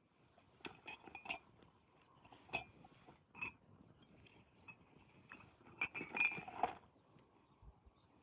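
Scattered light clinks and knocks of small hard objects being handled, some with a short ring, in a few groups, the busiest about six seconds in.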